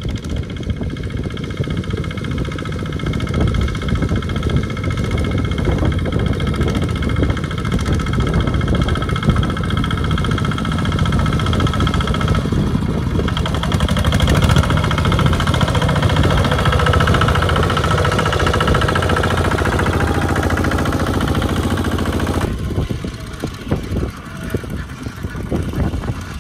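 Two-wheel walking tractor's single-cylinder diesel engine running hard under load as it hauls a trailer of rice sacks through mud. The engine sound changes abruptly twice, about halfway and near the end.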